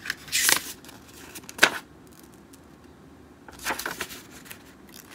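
Paper rustling as a printed booklet is handled and its pages turned, in a few short bursts, with one sharp snap of paper about a second and a half in.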